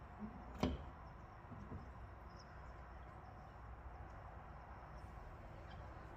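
A single sharp click about half a second in as the car's driver door is unlatched and swung open, over a faint, steady low hum, with a few soft ticks after.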